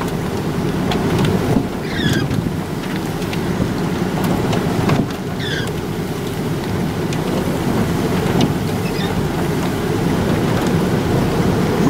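Steady, loud low rushing of storm wind, buffeting the microphone.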